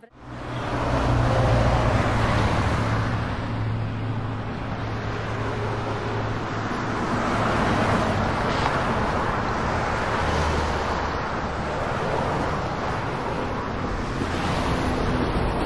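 Steady road traffic noise: a low rumbling hum under an even hiss, rising in the first second and then holding with slow swells.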